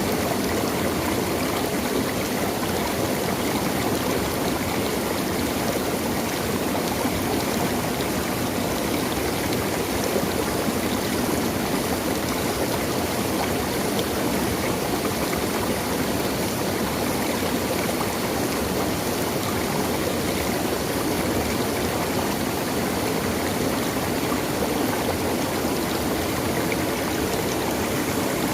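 Running water of a stream, a steady, even rush.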